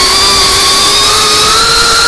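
Brushless motors and propellers of a GEPRC Cinelog 35 FPV cinewhoop drone in flight: a loud electric whine over a rushing hiss, its pitch climbing slowly as the throttle rises.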